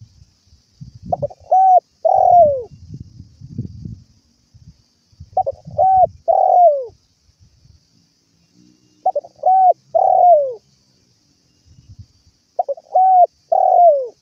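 Spotted dove cooing: four phrases a few seconds apart, each a couple of short notes followed by a longer coo that falls in pitch at its end. Faint low knocks sound beneath the calls.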